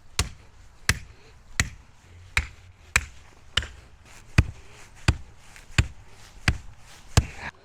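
Hammer driving a wooden form stake into the ground with about eleven steady, evenly spaced strikes.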